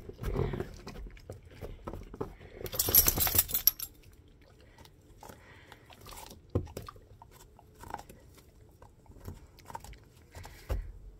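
Wolfdog chewing and biting on a cod skin treat, with scattered short crunches and crackles. About three seconds in comes a louder, noisy rustling crunch lasting about a second.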